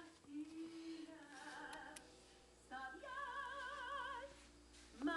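A woman singing a song from an animated film on a television, heard quietly through the TV's speaker, with a long held note with vibrato in the middle.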